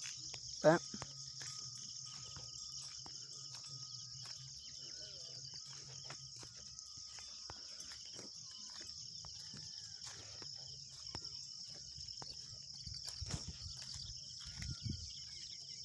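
Steady high-pitched chirring of insects with a fine pulse, over a low steady hum, with a few faint knocks near the end.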